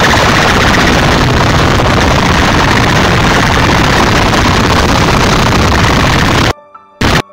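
Sound-system competition rig of horn loudspeakers and bass cabinets blasting DJ music at full volume, a dense, heavily distorted wall of sound. Near the end it cuts out abruptly, with a short stutter of sound in the gap.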